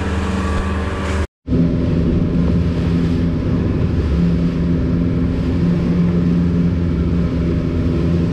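200 hp outboard motor running steadily at trolling speed, a low even drone with engine tones held at constant pitch. The sound cuts out for a moment about a second in, then carries on unchanged.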